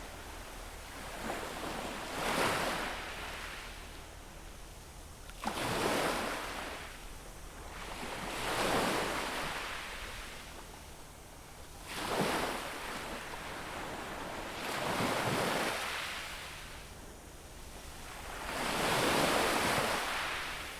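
Small sea waves breaking on a beach shore, six surges in turn, each washing in and fading, some breaking with a sudden splash.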